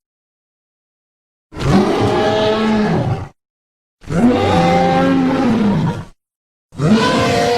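Dinosaur roar sound effect, heard three times with short silent gaps, starting about a second and a half in. Each roar lasts about two seconds and is a pitched call that rises and then falls.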